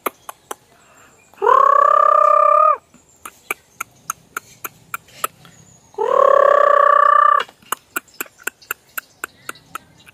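Hens pecking grain off concrete: quick runs of sharp taps. Twice, a loud, long call of steady pitch, each about a second and a half, sounds over them a few seconds apart.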